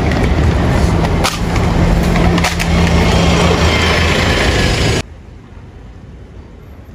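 Loud outdoor forecourt noise with a bus engine running close by: a dense rushing noise over a low hum and a steady low tone, with a couple of sharp clicks. It cuts off suddenly about five seconds in, leaving a much quieter background.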